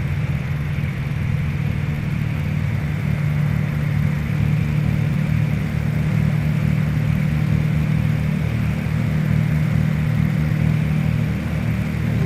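The Cessna T337G Skymaster's two turbocharged piston engines, one at the nose pulling and one at the tail pushing, run in a steady drone with a fast low throb.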